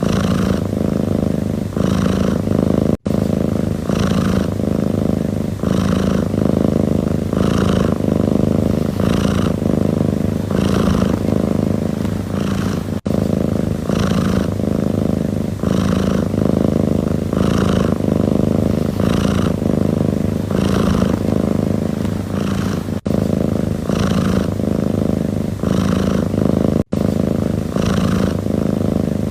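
Domestic cat purring: a continuous low rumble that swells and eases about once a second with its breathing. It cuts out for an instant a few times.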